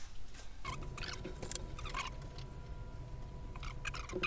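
Hands working on a mountain bike's handlebar and cables: scattered light clicks, rustles and short squeaky rubbing sounds.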